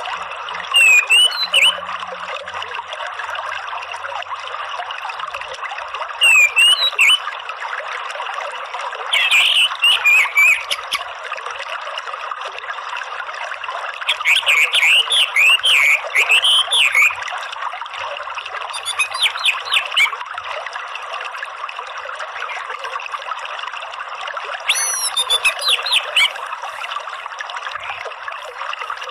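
Orange-headed thrush singing in six short bursts of quick, high sliding twitters (the 'ngeriwik' style), the longest about halfway through, over a steady running-stream sound.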